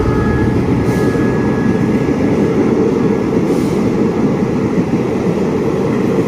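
Passenger train hauled by an SRT CSR Qishuyan diesel-electric locomotive running through the station close by without stopping. A steady heavy rumble of coach wheels on the rails, with a faint thin whine that fades out within the first few seconds.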